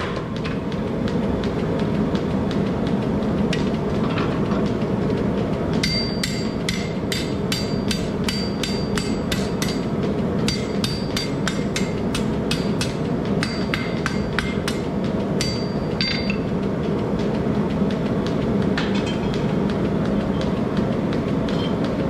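Hammer blows on steel ringing in quick runs from about six to sixteen seconds in, with a few fainter strikes near the end, over the steady roar of a propane forge burner.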